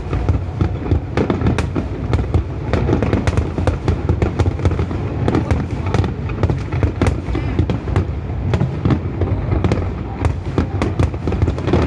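Fireworks display: a dense barrage of bangs and crackling bursts, several a second, over a constant low rumble.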